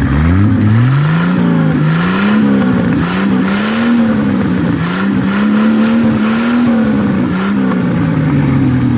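Bulldozer's Chevrolet 292 inline-six engine revving up sharply at the start and held at raised revs with the speed rising and falling, then dropping back to idle near the end.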